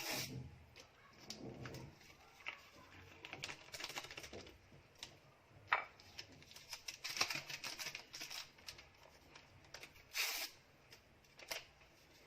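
Cake batter being mixed by hand in a bowl: irregular light clicks, taps and scrapes of the utensil against the bowl, with a brief louder rustle about ten seconds in.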